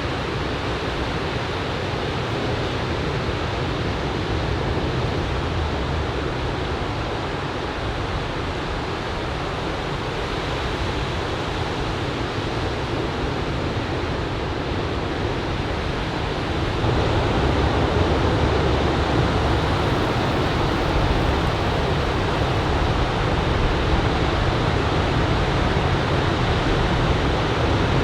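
Steady rush of ocean surf breaking on the shore, with some wind on the microphone; it grows louder about two-thirds of the way through.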